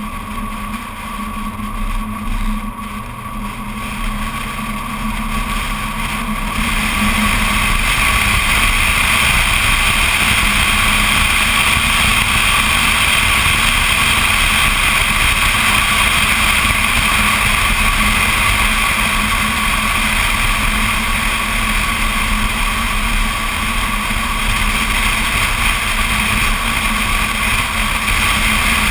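BMW Z4 Coupé on the move, heard from a camera mounted on the outside of the car: the engine note rises as the car picks up speed over the first several seconds, then a louder, steady rush of wind and tyre noise at cruising speed takes over.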